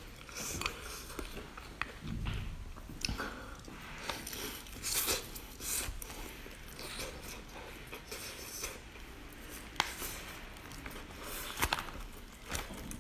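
Close-up eating sounds of cooked lobster: irregular wet chewing and biting of the meat, with sharper cracks and snaps of lobster shell being pulled apart by hand in the last few seconds.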